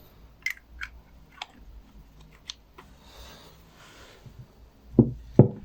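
Small items from a PGO-7 scope's accessory kit being handled: scattered light clicks and a soft rustle, then two dull knocks about half a second apart near the end, the loudest sounds.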